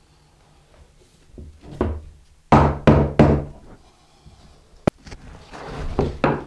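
A wooden 2x4 knocking and scraping against a packed sand-mix (deck mud) shower-pan bed and the wall as it is worked along the edges. There are several short knocks, the three loudest close together in the middle, then a sharp click and some rough scraping near the end.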